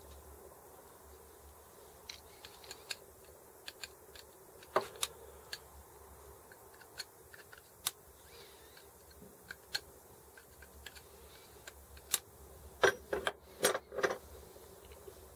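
Small steel parts of a Sturmey-Archer S5C internal gear hub clicking and clinking as they are handled and fitted onto the hub axle on a workbench. Light clicks come every second or so, with a louder quick run of clinks near the end.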